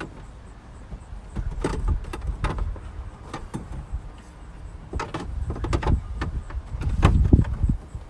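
Irregular knocks, clicks and scrapes of a flat metal pry bar working against plastic interior trim panels, trying to push out a retaining clip. Dull low thumps come in between.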